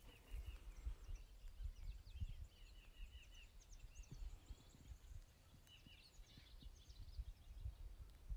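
Faint outdoor birdsong: several songbirds chirping, with a quick run of repeated short notes about two to four seconds in, over a low rumble.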